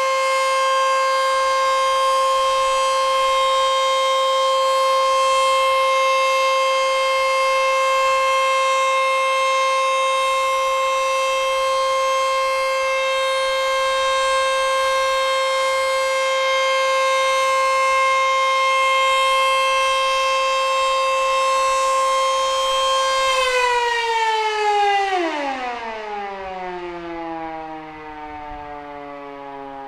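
ACA Screamer S-2 outdoor warning siren sounding its full-alert steady tone, a high pitched wail held level. About three-quarters of the way through the signal ends and the siren winds down, its pitch sliding steadily lower as it fades.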